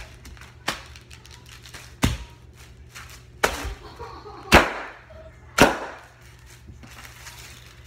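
Bare feet stomping on a tile floor right by the microphone: five sharp thuds about a second apart, the first one light and the fourth the loudest.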